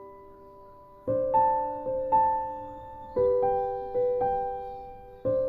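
Gentle background piano music: slow chords struck about every second and left to ring and fade.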